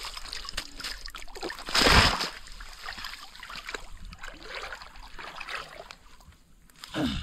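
Shallow muddy water splashing and sloshing as hands work inside a bamboo polo fish trap pressed into the mud, with one loud splash about two seconds in.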